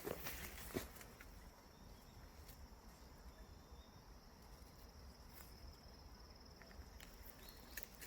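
Faint, steady high-pitched trill of an insect singing, stopping near the end, with a couple of soft clicks in the first second.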